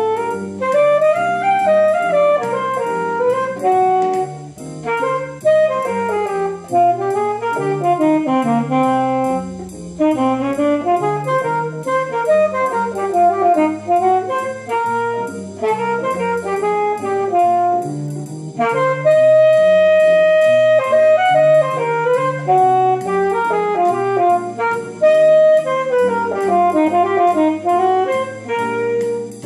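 Alto saxophone playing a melody of quick, running notes, with one long held note about twenty seconds in.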